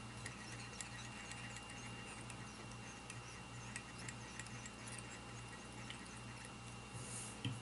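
Faint scratching ticks of tying thread being wound from a bobbin over the head of a steelhead fly, over a steady low electrical hum.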